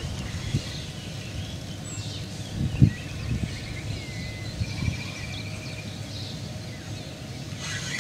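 Outdoor ambience with small birds chirping, including a short trill about five seconds in, over irregular low thumps and rumble, the loudest a little under three seconds in. A brief rustling hiss rises near the end.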